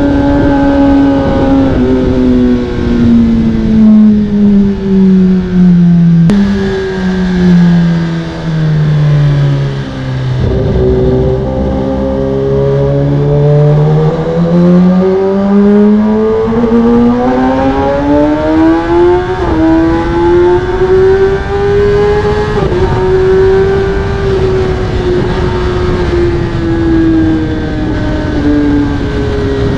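Kawasaki ZX-10R inline-four with an Akrapovic carbon exhaust under way. The engine note falls steadily for about ten seconds as the bike slows, then climbs again with a couple of quick upshifts, and holds near cruising revs to the end.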